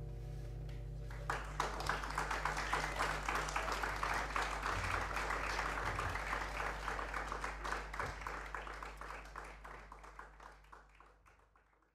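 Audience applauding at the end of a live acoustic jazz set: dense clapping starts about a second in, following a short pause with only a low steady hum, and fades out to silence near the end.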